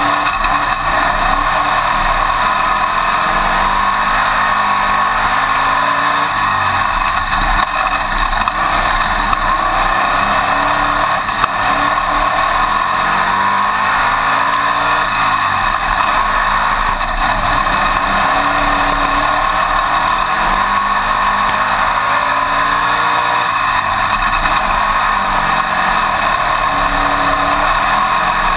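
Winged dirt-track modified race car's engine heard from the cockpit, running hard at racing speed. Its pitch rises and falls repeatedly as the throttle comes off and back on around the oval, under a constant loud rush of noise.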